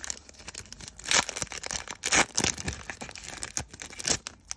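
Foil wrapper of a Topps Chrome trading-card pack crinkling and tearing as it is handled and opened, with sharp crackles about a second in, around two seconds and near four seconds.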